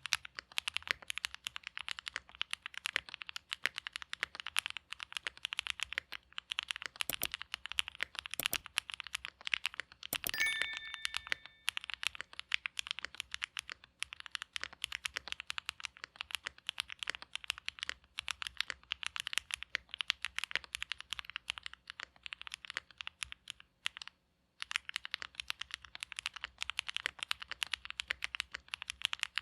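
Continuous fast typing on a Mode Sonnet mechanical keyboard with a POM plate, Oil King linear switches and GMK keycaps: a dense stream of keystroke clacks, broken by a short pause a few seconds before the end.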